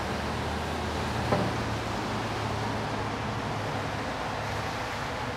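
Steady rushing background noise with one sharp knock about a second in, as the steel offset smoker is worked by hand.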